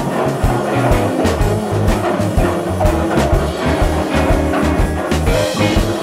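Background music with drums and a steady beat.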